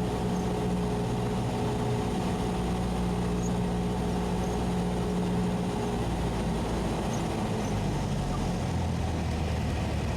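Cessna 172SP's four-cylinder Lycoming engine and propeller heard from inside the cockpit, running steadily at low power; its pitch drops lower about two-thirds of the way through as the revs fall.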